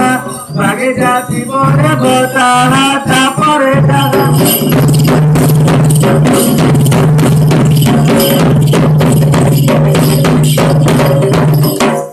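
Folk drumming on barrel drums for a Danda nacha dance: a melodic line over the drums for the first four seconds or so, then fast, dense drumming from about four seconds in that stops abruptly near the end.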